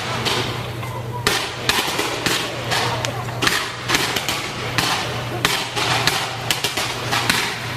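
Fireworks shells bursting in quick, irregular succession, a few sharp bangs a second, over a steady low hum. The bangs stop near the end.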